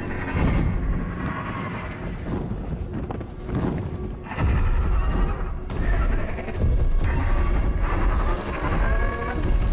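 Dramatic film score mixed with deep, repeated booms from the sound effects of a dragon battle, swelling louder from about halfway through.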